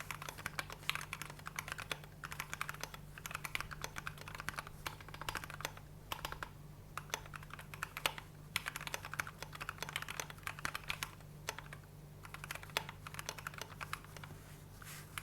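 Typing on a custom KBD67 v2 MKII mechanical keyboard fitted with lubed, filmed Gateron Ink Black linear switches and PBT OSA-profile keycaps. Rapid runs of keystrokes come with brief pauses about six to seven seconds in and again around twelve seconds.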